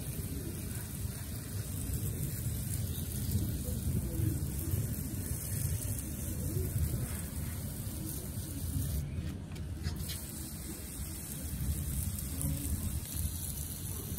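Water spraying from a hose-end spray wand onto succulents and gravel: a steady hiss with a low rumble under it, the hiss breaking off briefly about nine seconds in.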